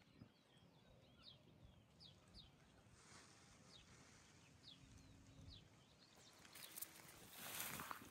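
Faint bird chirps: short, high, falling notes repeated every half second or so. A brief rustling hiss comes near the end.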